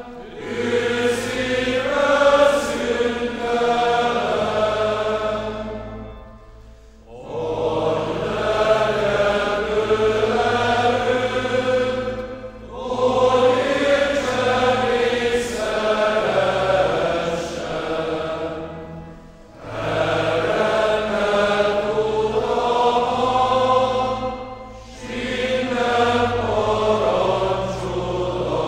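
A church hymn sung by voices with organ accompaniment, in long phrases with short breaks between them.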